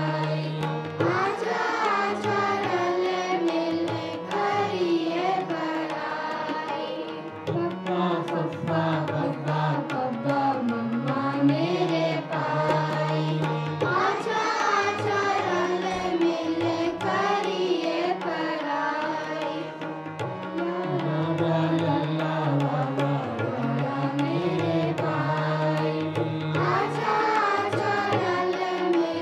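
Group of children singing a Sikh kirtan hymn in unison, led by a girl's voice, over sustained harmonium chords and steady drum strokes keeping time.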